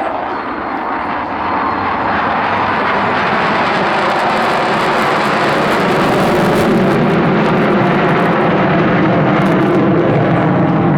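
F-22 Raptor fighter jet flying past, its twin Pratt & Whitney F119 turbofans making loud, steady jet noise that builds over the first couple of seconds and then holds.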